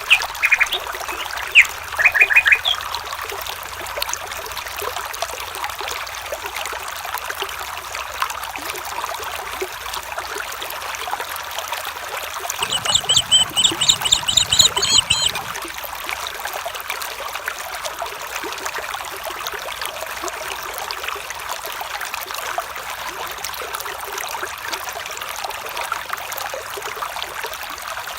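A small stream trickling and burbling steadily. Bird chirps sound briefly near the start, and about halfway through a bird gives a quick run of about ten repeated high notes.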